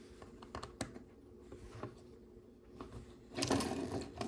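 Small plastic clicks and rustling of LEGO pieces being handled. A louder, longer rustling noise comes a little past three seconds in.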